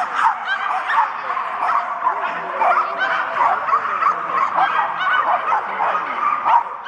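Dogs yipping and barking in quick, overlapping calls over and over, the excited sound of dogs around an agility run.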